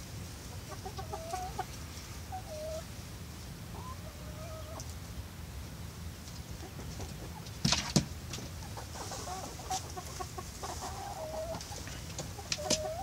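Barred Rock and Australorp hens clucking, with short, drawn-out calls that slide in pitch, coming every second or two. A sharp knock about eight seconds in is the loudest sound.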